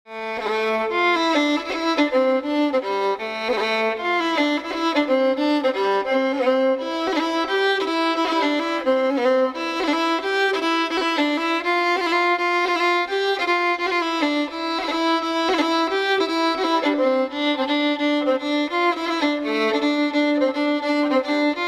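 Background music: a fiddle playing a melody.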